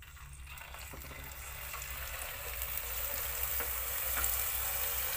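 Hot cooking oil sizzling as a raw accordion-cut potato goes into it, with scattered small pops. The sizzle starts just after the beginning and grows steadily louder as the potato starts to fry.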